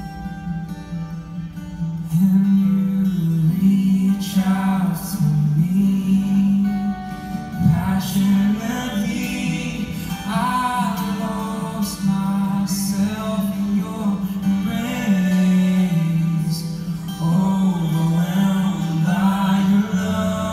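A man singing a slow melody into a microphone, with long held notes, accompanied by a strummed acoustic guitar. The voice comes in strongly about two seconds in.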